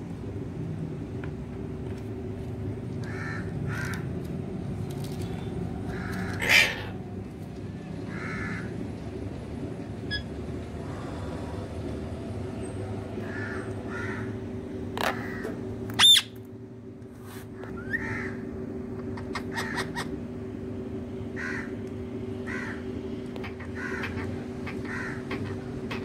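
Indian ringneck parakeets squawking in short calls every second or two, with two loud, sharp screeches about six seconds in and again about sixteen seconds in.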